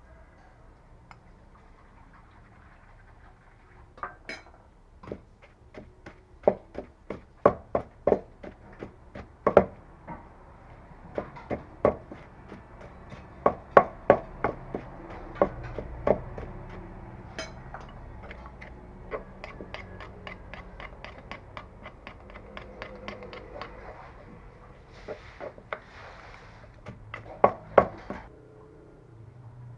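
Wooden pestle pounding shredded vegetables in a large wooden mortar: a run of knocks, about two a second, starting about four seconds in and stopping shortly before the end.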